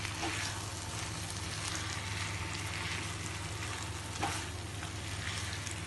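Shredded chicken and spice masala sizzling in a frying pan while a spatula stirs and turns it, with light scraping; one sharper tap of the spatula about four seconds in.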